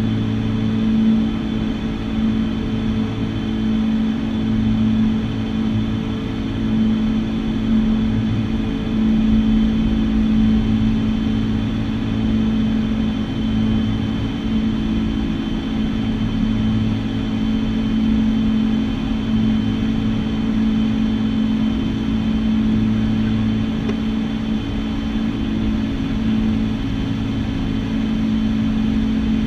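Cabin drone of a Piper PA-31T Cheyenne II's twin Pratt & Whitney PT6A-28 turboprops and propellers in cruise-descent on approach: a steady low hum that swells and fades every few seconds, with a thin steady high whine above it.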